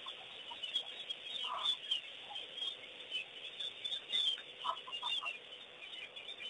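A chorus of wild birds chirping and chattering, with a louder, lower call about one and a half seconds in and a quick run of four short notes about five seconds in.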